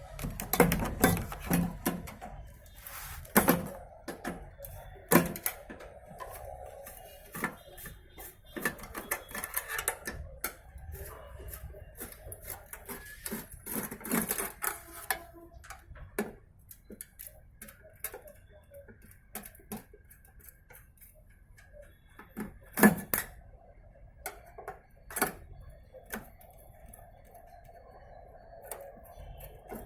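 Irregular metallic clicks, taps and clatter of a screwdriver and loosened screws as the magnetron is unbolted from the microwave oven's sheet-metal housing, with a sharper knock about 23 seconds in.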